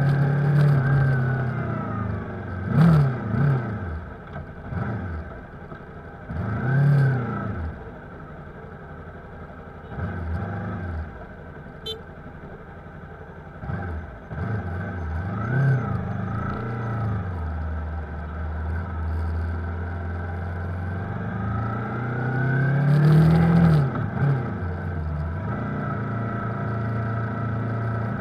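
Yamaha R3's parallel-twin engine in slow stop-and-go traffic: a steady low idle broken by several short revs that each rise and fall in pitch, the loudest about three, seven and twenty-three seconds in.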